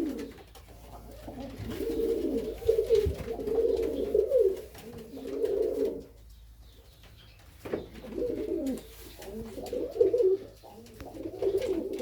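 Serbian Highflyer pigeons cooing: a run of low, warbling coos, each about a second long, with a pause of a second or so about halfway through.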